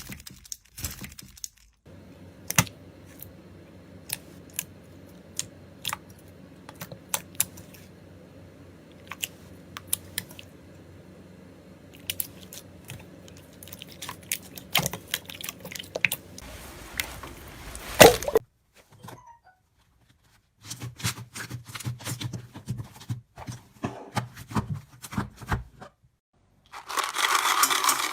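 Slime being squished and stretched by hand: scattered sticky clicks, pops and crackles, with a sharp loud pop about eighteen seconds in and a louder stretch of crackling near the end.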